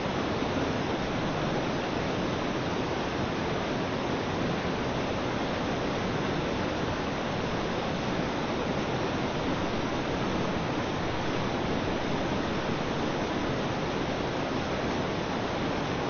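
Steady rush of water pouring and splashing at a turning wooden waterwheel.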